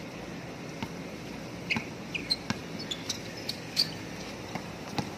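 Basketball shoes squeaking on the court in short scattered chirps, among light footfalls and knocks from play.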